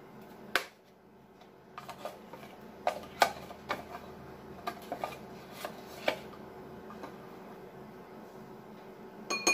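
Scattered clicks and taps of a measuring spoon and a tin of ground black pepper being handled as pepper is scooped out, over a faint steady hum. Near the end, a quick run of knocks with a short ringing clink.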